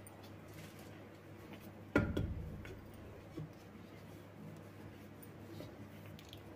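A single wooden knock about two seconds in as a wooden rolling pin is set down on a round wooden rolling board, then faint rubbing and a light click as a small disc of gujiya dough is rolled out lightly.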